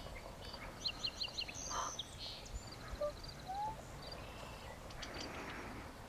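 Faint outdoor evening ambience with wild birds chirping: a quick run of high chirps about a second in, then a few scattered single call notes.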